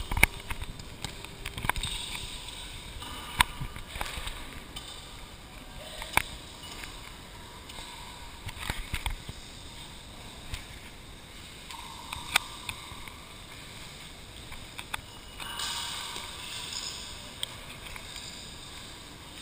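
Scattered sharp knocks and thuds, irregular and a few seconds apart, from people moving about a large gym hall, with a low background hiss.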